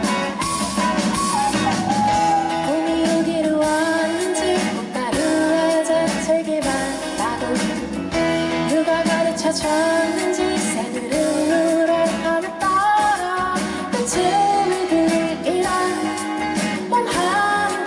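A live pop band playing, with guitar and a melody line over a full band, recorded from the audience.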